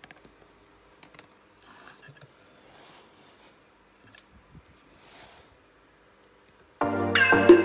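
Faint small clicks and short soft rubbing as thin wooden model spokes and a pencil are handled on a hardboard board. Near the end, electronic background music starts suddenly, much louder.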